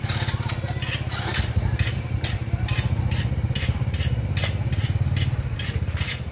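Rhythmic scraping strokes, about two a second, of a knife working a bamboo shoot by hand, over the steady low running of a motorcycle engine.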